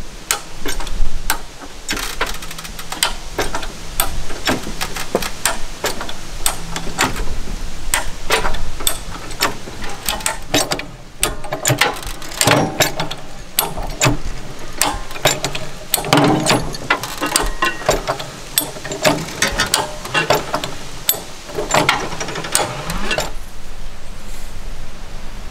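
Forest Master FMFJ steel high-lift farm jack being pumped to raise a ride-on mower: its climbing mechanism ratchets up the perforated bar in a long run of sharp metallic clicks and clacks with each stroke of the handle. The clicking stops about 23 seconds in, once the mower is up.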